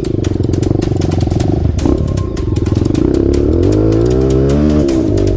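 Honda CRF 230 dirt bike's single-cylinder four-stroke engine running at low revs, then accelerating with rising pitch from about halfway through before the revs drop sharply near the end. Many short clattering knocks are heard throughout.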